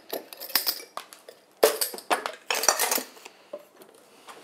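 Metal teaspoon clinking against glass as cane sugar is spooned from a glass jar and stirred into a glass of yeast and warm milk: quick clinks in two busy clusters, quieter for the last second or so.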